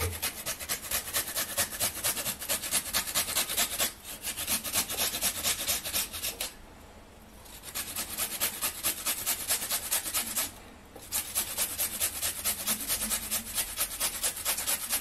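Fresh ginger being grated on a handheld metal grater: quick, rapid rasping strokes, with short breaks about four, seven and eleven seconds in.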